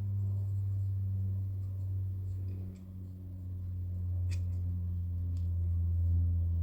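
A steady low electrical-sounding hum, with a few faint light clicks, the clearest about four seconds in.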